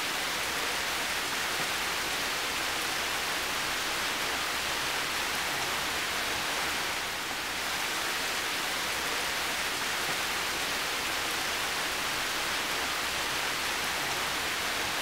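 Heavy rain falling steadily, an even hiss with no thunder.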